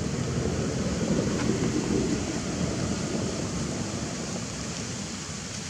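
Wind buffeting the microphone: a steady low rumbling noise, a little stronger in the first half.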